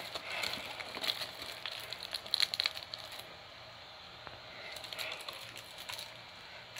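Irregular crinkling and crackling of a Blu-ray case and its wrapping being handled as it is opened. There is a denser run of clicks about two seconds in, then a quieter stretch.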